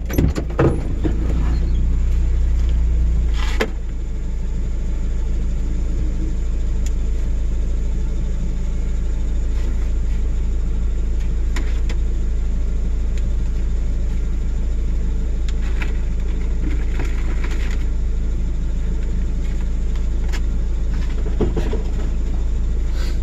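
Truck engine running with a steady low rumble, a little louder for the first three or four seconds, with a few faint knocks.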